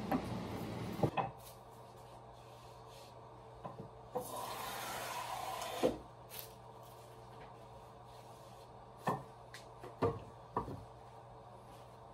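Japanese hand plane (kanna) shaving wood: a rasping hiss at the start, then one long planing stroke that ends in a knock a few seconds in, followed by a few short wooden knocks near the end.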